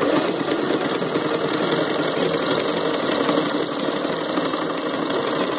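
Sewing machine fitted with a buttonhole attachment, running steadily as it stitches a buttonhole.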